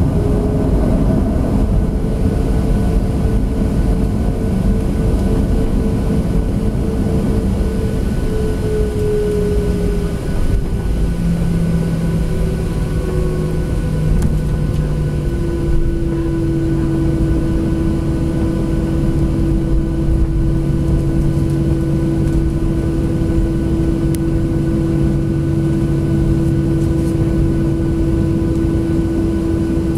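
Boeing 737-700's CFM56 turbofan engines running at taxi power, heard from inside the cabin: a steady rumble under a humming whine. The whine's pitch dips slightly, then settles to a steadier, lower tone about halfway through.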